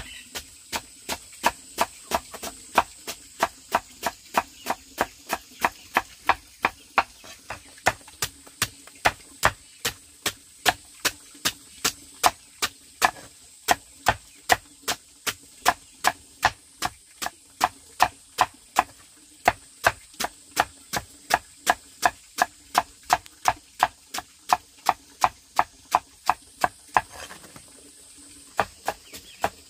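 Rapid, evenly paced chopping strokes, about two to three a second, with a short break near the end.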